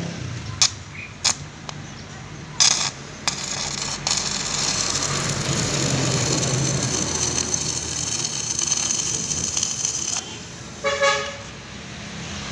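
Stick (arc) welding on a truck engine mounting's steel bracket. A few sharp clicks and short sputters come first, then a steady hiss of the arc starts about four seconds in and cuts off suddenly about ten seconds in.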